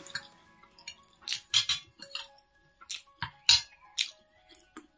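Eating sounds: a fork and spoon clinking against a ceramic plate, mixed with wet mouth sounds of chewing chow mein noodles, in a string of short, sharp sounds about a dozen times.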